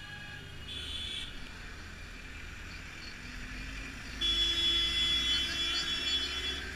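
Engine and road rumble inside a moving taxi in heavy traffic. A brief horn note comes about a second in, and a louder, long vehicle horn blast starts about four seconds in and holds for about two seconds.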